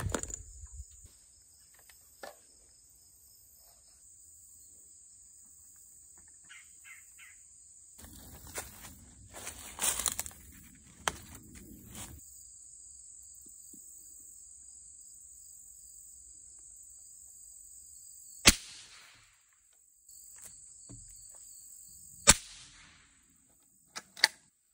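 Rustling through leaves and undergrowth, then two sharp, loud cracks about four seconds apart, each followed by a short hiss. These are suppressed rifle shots. Two quick clicks come near the end, over a steady high-pitched tone.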